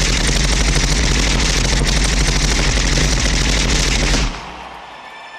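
Machine-gun fire sound effect from a recorded pop track: one long, rapid burst of shots over a heavy low rumble. It cuts off suddenly about four seconds in, leaving a quiet hum with faint steady tones.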